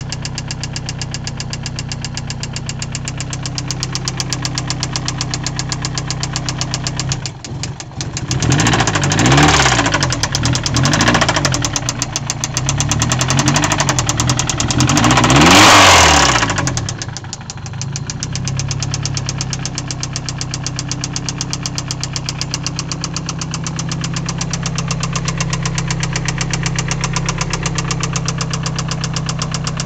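Nissan SR20DET turbocharged four-cylinder idling with a steady, rapid knock, revved up and down three times in the middle before settling back to idle; the knock is rod knock, a worn connecting-rod bearing.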